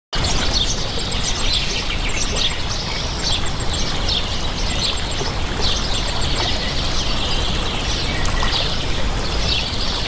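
Steady rush of a fast-flowing river, with birds chirping over it in short falling chirps, roughly one a second.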